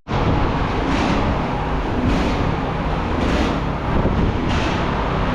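Motor vehicle noise: a steady low rumble, with a hiss that swells and fades about once every second and a quarter.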